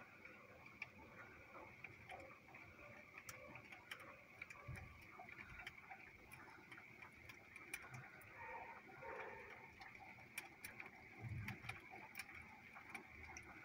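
Faint rain: scattered drops ticking irregularly over a low, steady hiss.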